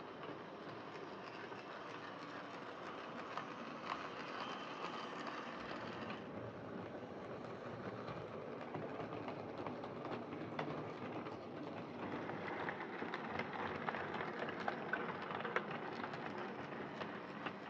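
Hornby Class 14xx OO gauge model tank engine running along the layout track: the steady whirr of its Type 7 motor and gear train, with scattered clicks as the wheels cross rail joints and pointwork. It gets a little louder in the last few seconds.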